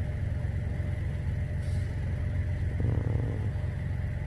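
Steady low rumble of a car engine idling, with a brief pitched sound about three seconds in.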